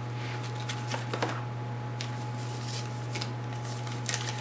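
A few soft paper rustles and light clicks as envelopes of unflavored gelatin are taken out of their small cardboard box, over a steady low hum.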